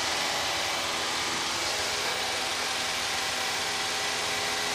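Steady drone of a Piper PA-28-151 Cherokee's four-cylinder Lycoming engine and propeller in flight, heard from inside the cabin, with a strong hiss over faint steady engine tones.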